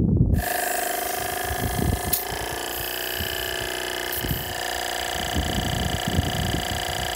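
Portable air compressor running steadily with a high whine, pumping air into a punctured 4x4 tyre through a chuck on the valve stem. It starts abruptly about half a second in.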